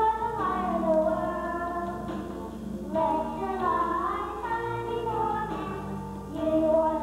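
Children singing a song with instrumental accompaniment, in phrases of held notes with short breaks about three seconds in and again near the end.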